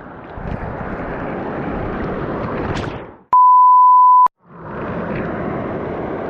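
A loud, steady, single-pitched bleep tone lasting about a second cuts in a little over three seconds in and stops abruptly. Before and after it there is a steady rush of flowing stream water.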